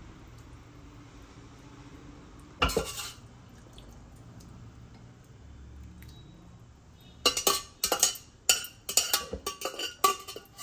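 Metal utensil knocking and scraping against a metal cooking pot while keema curry is scooped out and spread over layered biryani rice. There is one sharp clatter about two and a half seconds in, then a quick run of clinks and scrapes over the last few seconds.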